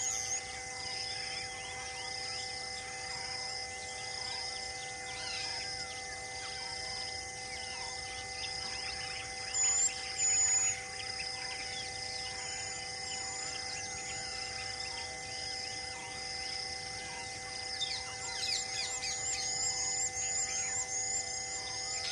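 Outdoor scrub ambience: a steady insect drone with a soft call repeating about twice a second, and high bird chirps, a brief louder pair about ten seconds in and a run of quick chirps near the end.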